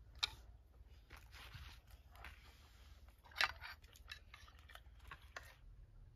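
Quiet meal sounds: spoons clicking against plates and soft rustling of bread being handled, with a sharp click just after the start and a louder one about three and a half seconds in.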